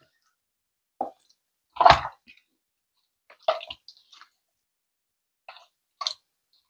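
Wet squelching of raw chicken pieces being mixed by hand in a thick marinade in a plastic bowl: about six short squishes, the loudest about two seconds in.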